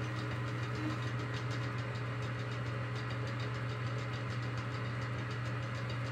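Metal lathe running steadily, spinning a motor armature while a high-speed steel tool takes light cuts on its worn copper commutator. A steady low hum with a fast, even ticking over it.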